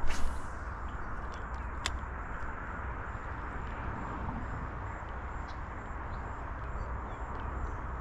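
A fishing cast: a short rushing swish right at the start as the line goes out and the lure lands, then a single sharp click about two seconds in, as of the reel being engaged. A steady low outdoor rumble lies underneath.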